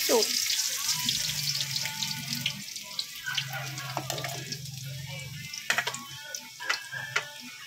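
Chopped aromatics hitting hot oil in a wok and sizzling: a sudden loud sizzle that slowly dies down, with a few sharp pops and crackles near the end.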